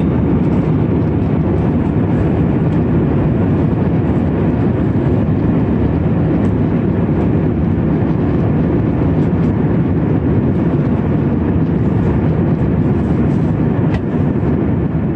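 Steady cabin noise inside an Airbus A319 in its climb after takeoff: the engines and rushing air as an even, low-heavy drone.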